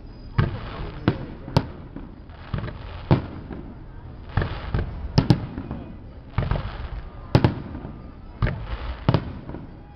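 Fireworks display: a fast run of sharp bangs from bursting shells, more than a dozen in quick succession, some in close pairs, each trailing off in a short echo.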